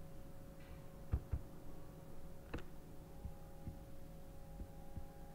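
Steady low electrical hum of the room and microphone, with two faint dull knocks a little after a second in and a sharper click about two and a half seconds in.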